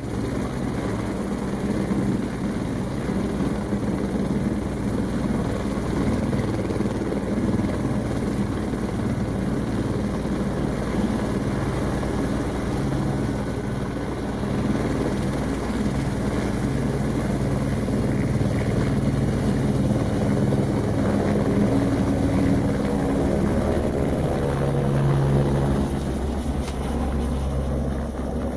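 Turbine helicopter running on the ground with its rotor beating rapidly and steadily, the engine and rotor note changing and growing stronger in the last several seconds as it lifts off.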